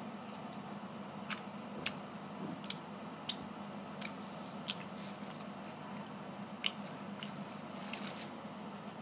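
A person chewing a mouthful close to the microphone: wet mouth clicks and smacks, about one a second, over a steady low hum.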